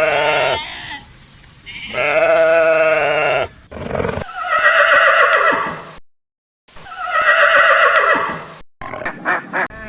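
Farm animals calling: about four loud, drawn-out calls with short pauses between them, then a quick run of short sounds near the end.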